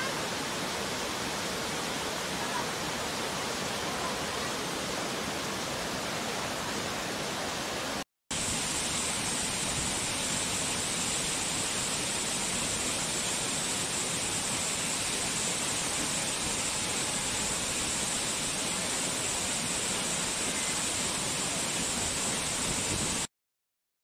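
Waterfall: a steady rush of falling water. The sound drops out for a moment about eight seconds in, then goes on with a brighter hiss, and cuts off suddenly shortly before the end.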